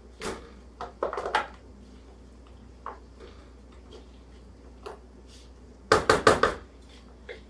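Spatula scraping and knocking against a mixing bowl as chicken salad is pushed out into a plastic storage container: a few scattered knocks, then a quick run of four or five louder ones about six seconds in.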